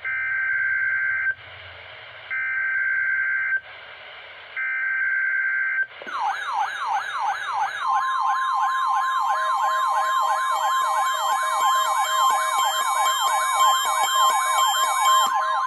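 Three short bursts of Emergency Alert System SAME header data tones, then a wailing alert tone that sweeps up and down about three times a second. About two seconds after the wail starts, the steady NOAA Weather Radio warning alarm tone joins it: the start of a Required Weekly Test.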